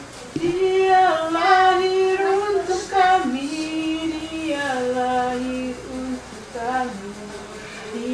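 A high voice singing a slow melody in long held notes, starting about half a second in.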